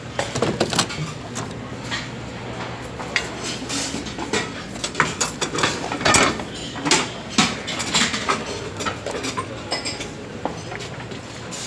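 Dishes and cutlery clinking and clattering irregularly, many short knocks and chinks, over a steady low hum.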